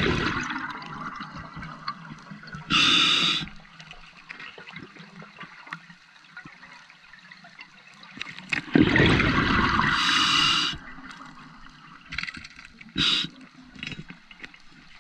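Scuba diver breathing through a regulator underwater: a short hiss of inhalation about three seconds in and again near the end, and a long gush of exhaled bubbles from about nine to ten and a half seconds.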